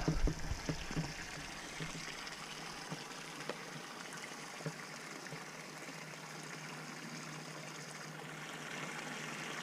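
Water running in a steady stream, filling the calves' water tote, with a few faint knocks.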